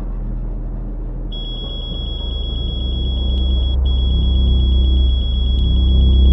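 Computer terminal printing text on screen: a rapid run of high electronic beeps as the characters appear, breaking off briefly about three and a half seconds in as a new line starts. Under it, a deep rumble grows steadily louder.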